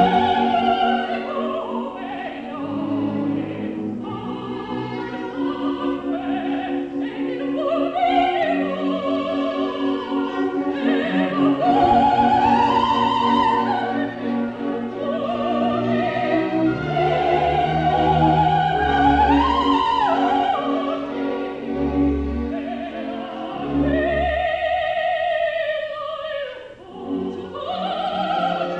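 Female operatic voices singing with wide vibrato over an orchestra, in a soprano and mezzo-soprano duet, with several long held high notes. There is a brief drop in the sound a little before the end.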